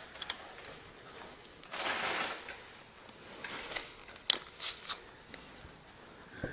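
Hand work on a snowblower wheel and axle: a short scrape about two seconds in, then one sharp click and a few lighter clicks and knocks.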